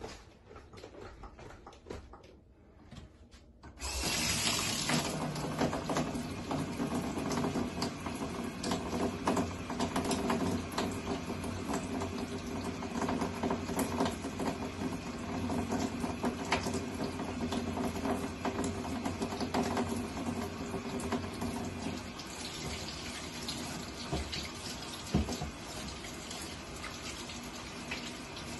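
Water running from a pull-down faucet into a utility sink while hands are washed under the stream. The tap comes on suddenly about four seconds in and then runs steadily.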